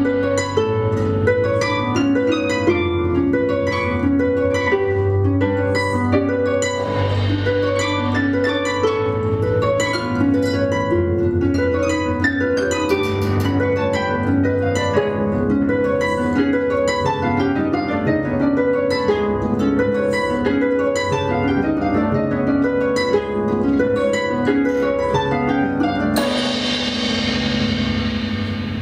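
Two concert harps played together in a duet, a dense run of plucked, ringing notes over a sustained low bass. Near the end the plucking gives way to a shimmering wash of sound that fades out.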